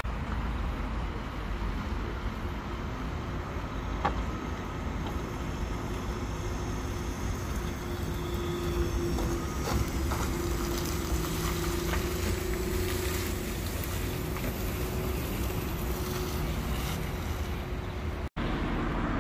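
City buses driving on a wet, slushy street: steady traffic noise with tyres hissing on the wet road and a faint steady hum in the middle.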